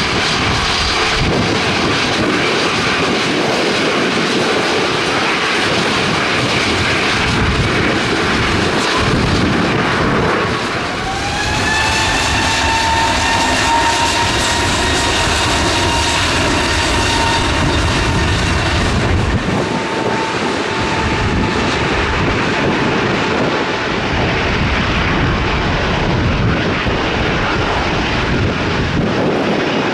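Airliner jet engines running loud and steady, with wind gusting on the microphone. About eleven seconds in, an engine whine rises and holds, then fades away about ten seconds later.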